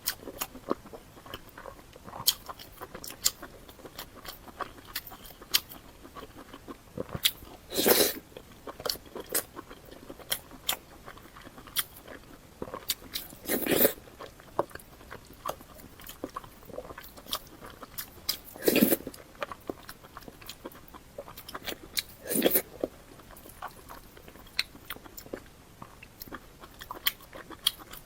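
Close-miked eating sounds: chewing with many small wet clicks and crunches, broken by four louder half-second bites or slurps spread through the stretch.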